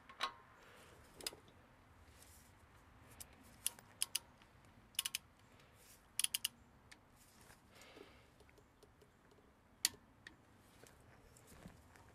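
Sharp, faint clicks, some single and some in quick runs of two to four, from a torque wrench's ratchet head on a castle nut socket as the rear hub's inner bearing nut is tightened to 18 foot-pounds.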